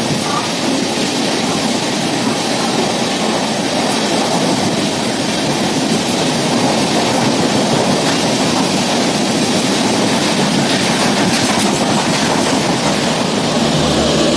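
Passenger coaches of an Indian Railways express train running past close by at speed: a loud, steady noise of the wheels on the rails.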